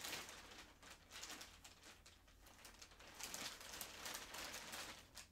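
Faint rustling and handling noises in short, uneven stretches as yarn and its packaging are moved about on the desk.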